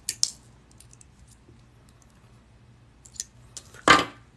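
Small metallic clicks and scrapes of pliers bending a steel paper clip straight, with a pair of sharp clicks at the start and a louder, brief noise near the end.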